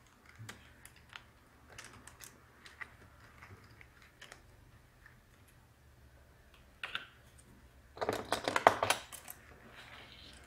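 Small clicks and taps of plastic laptop parts being handled inside the open case, with a louder burst of rattling clicks about eight seconds in.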